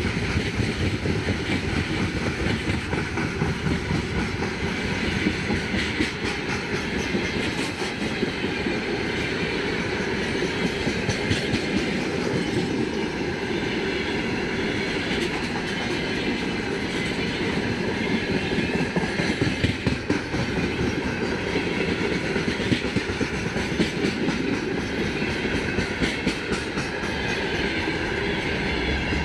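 Freight train of open gondola wagons rolling past: a steady rumble and rattle from the wheel sets and bogies, with repeated clicks of wheels crossing rail joints.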